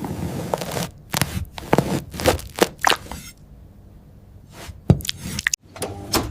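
A run of sharp scrapes and cracks, several in quick succession in the first half and a few more clicks near the end, over a low hum at the start.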